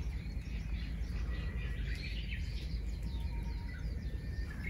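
Small birds chirping and twittering in quick short calls, over a steady low rumble.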